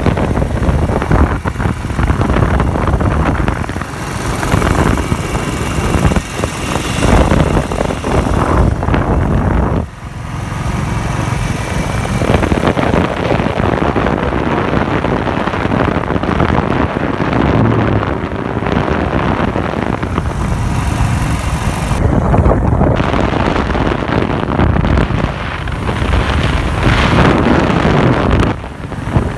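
Royal Enfield Thunderbird 350's single-cylinder engine running at cruising speed, heavily mixed with wind buffeting the microphone. The noise drops briefly about a third of the way in and again near the end.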